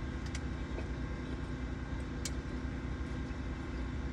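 Steady low hum of a car's idling engine, heard from inside the cabin, with two short clicks, one near the start and one about halfway through.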